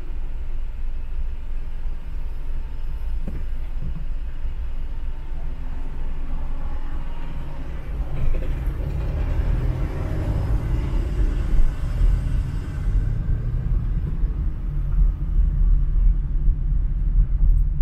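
Car driving through city traffic: a steady low rumble of engine and tyres on the road. Around the middle it swells louder, as of other traffic passing close by.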